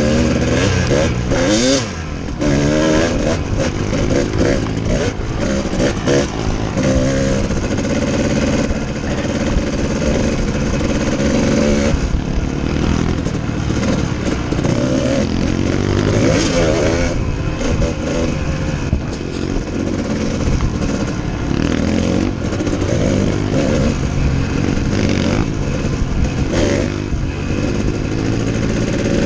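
Kawasaki KDX two-stroke dirt bike engine under way on a trail, revving up and easing off again and again, its pitch climbing and dropping as the rider works the throttle and gears.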